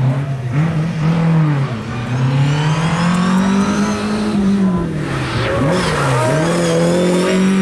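Lada VFTS rally car's four-cylinder engine at high revs on a special stage. The revs climb, fall away, dip sharply twice in quick succession about two-thirds of the way through as the driver lifts and shifts, then climb again as the car comes close.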